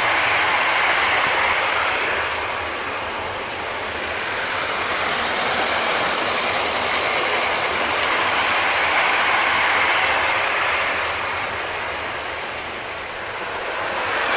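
00 gauge model trains running round the layout: a steady whirr of small electric motors and wheels on the track. It swells as a train comes close and fades as it moves away, louder at the start and through the middle and dipping twice.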